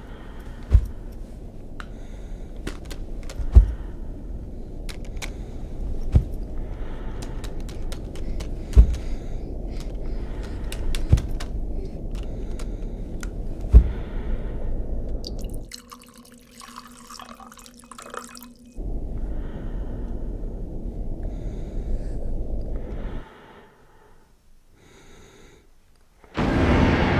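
Suspense sound design: a low rumbling drone with a heavy thud about every two and a half seconds. About halfway through, the drone cuts out for a few seconds, returns, and then falls away near the end, when a louder sound starts.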